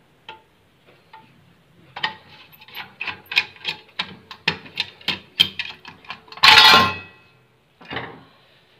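A screwdriver turning screws out of an electric iron's housing, making a run of small clicks about three or four a second. About two-thirds of the way in there is one loud scraping clatter as the iron's metal body is pulled apart.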